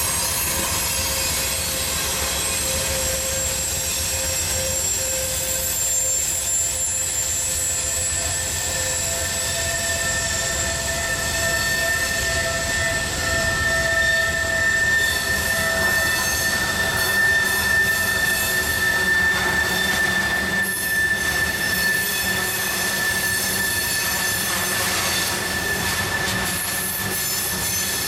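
Freight cars of a manifest train rolling past on a tight curve, their steel wheel flanges squealing against the rail in several long, steady high tones over a continuous low rumble of wheels on track.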